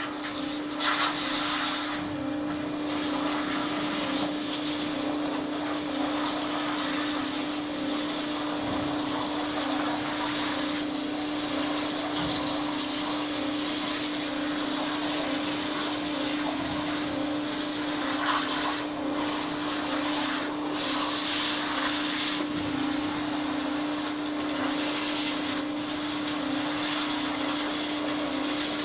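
A 60,000 psi abrasive waterjet, water mixed with sand, cutting 1/16-inch sheet metal: a steady, loud hiss from the cutting jet over a steady hum.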